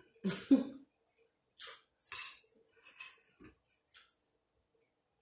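Metal spoon scraping and clinking in a small glass bowl of beans, with soft chewing sounds: a handful of short, separate noises.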